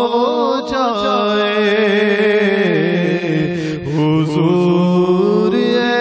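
Naat recital: a long, wavering melismatic vocal line held over a steady drone, with the melody gliding up and down and briefly dipping in level a little before the middle.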